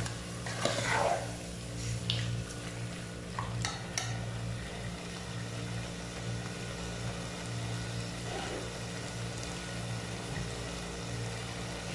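A slotted metal turner scraping and clicking against a stainless steel pot a few times in the first few seconds as chicken stew is stirred, then the stew sizzling faintly over a steady low hum.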